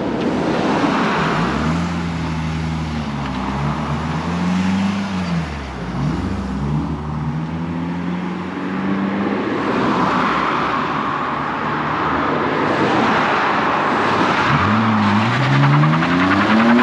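Car engines revving as cars pull away, the pitch rising and falling several times in the first half, then one engine accelerating hard with a steeply rising pitch near the end.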